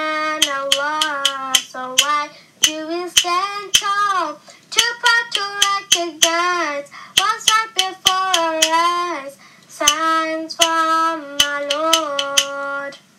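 Song on the soundtrack: a child's voice singing a melody over sharp hand claps keeping the beat, ending on long held notes.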